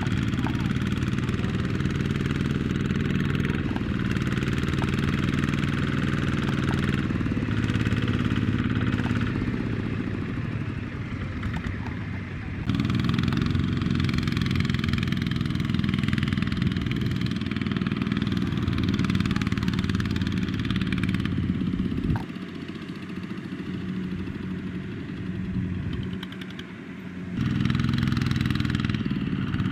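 Single-cylinder Kubota diesel engine of a small two-wheel farm tractor running hard, its note shifting between steadier and busier spells. About two-thirds of the way in it drops to a quieter, lower running, then comes back up to full working speed near the end.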